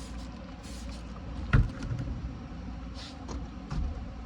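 A single sharp thump about a second and a half in, followed by a few small knocks and a brief hiss, over a steady low rumble.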